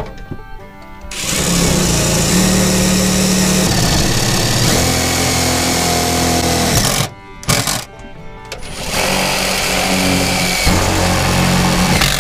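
Cordless impact driver hammering screws through a metal meter base into steel siding, in two long runs with a short pause between them.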